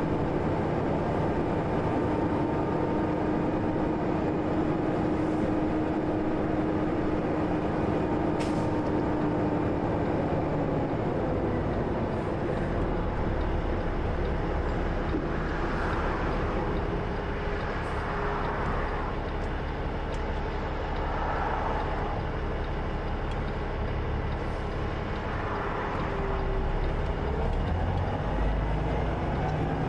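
A semi truck driving at road speed: a steady drone of engine and road noise. About a third of the way in the engine note changes and a deeper rumble comes up.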